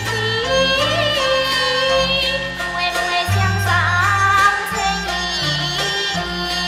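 Teochew opera music: a voice singing long, wavering notes over instrumental accompaniment with a low bass line.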